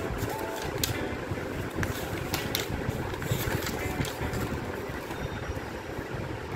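Paper manual pages rustling and crackling as they are turned and handled, heard as scattered short crinkles over a steady low background rumble.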